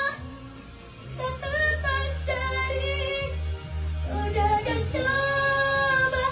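Two women singing together into handheld microphones over a musical accompaniment with a steady bass. The singing drops away briefly near the start, then comes back.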